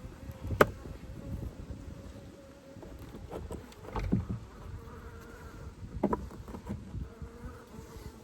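Honeybees buzzing around an open hive, a faint steady hum, broken by a sharp click about half a second in and knocks around four and six seconds in.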